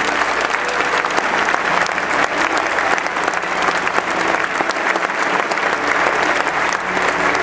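Large audience applauding, a dense, steady clapping that fills the hall.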